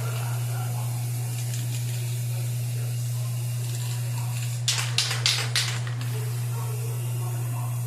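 Paint being sprayed in four short hissing bursts, close together about five seconds in, over a steady low hum.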